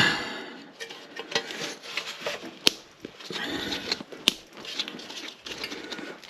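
Irregular metallic clinks, sharp clicks and scraping as a bathroom exhaust fan's parts are handled and worked loose to change its motor.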